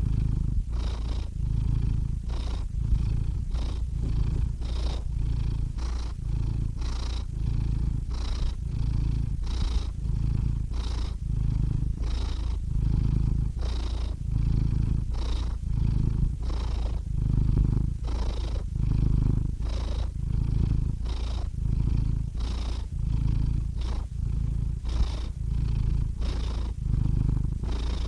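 Domestic cat purring close up, a steady low rumble that swells and eases with each breath about once a second.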